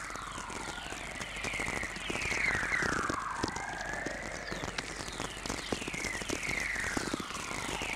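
Archive VLF radio recording of Halley whistlers: a series of whistling tones, each gliding down in pitch over a second or two and overlapping one another, over a constant crackling of atmospherics. Whistlers are radio waves from distant lightning, drawn out in pitch as they travel along the Earth's magnetic field.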